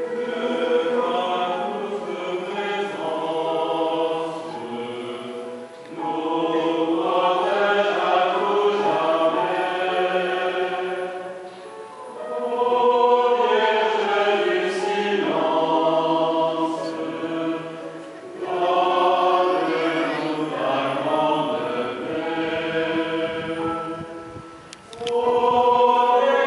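Many voices singing a religious hymn together in slow phrases of about six seconds, with a short break between phrases.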